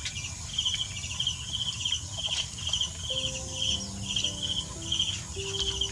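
An insect chirping in an even rhythm, about two short high chirps a second, with a few faint held tones coming in about halfway through.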